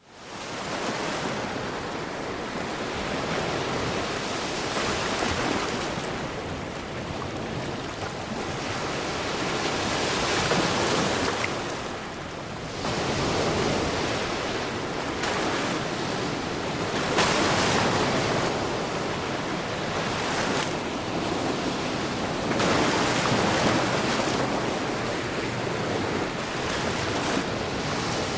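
Sea waves washing onto a shore, a continuous rushing that swells and falls back every few seconds.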